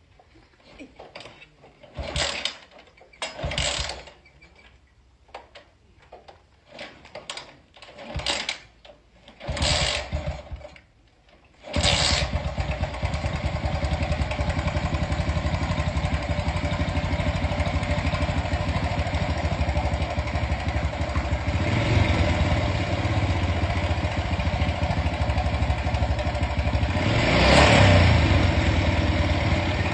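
Honda motorcycle engine being kick-started: several short bursts of cranking without a start, then it catches about twelve seconds in and runs steadily, revved briefly near the end.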